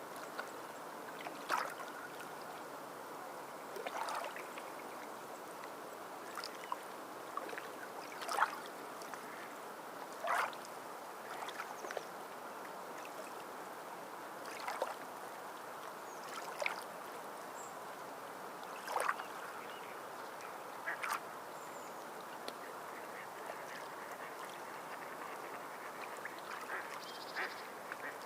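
Steady wash of water with short bird calls, one every two seconds or so, standing out above it.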